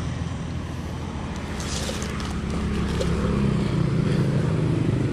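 A motor vehicle engine running steadily nearby, a low hum that grows a little louder toward the end. Brief scratchy noises about two seconds in.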